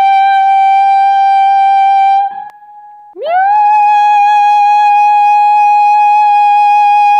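A woman's trained soprano voice holding a high G in forward 'mascara' head-voice resonance. The note breaks off about two seconds in. About a second later a second long note, a half step higher on G sharp, slides up into pitch from below and is held steady.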